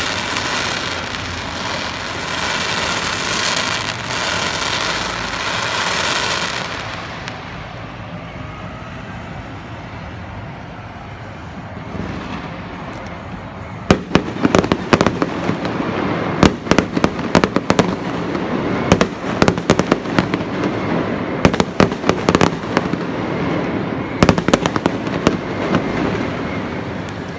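Aerial fireworks display. It opens with a dense steady hiss for about six seconds, then falls to a lull. From about halfway it becomes a rapid, irregular run of sharp bangs and cracks from bursting shells, several in quick clusters.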